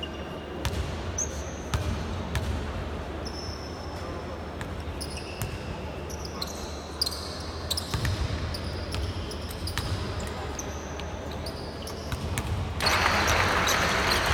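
Basketballs bouncing on a hardwood court during a team warm-up: repeated irregular thuds with short squeaks of sneakers on the floor. Near the end a louder, steady rushing hall noise sets in.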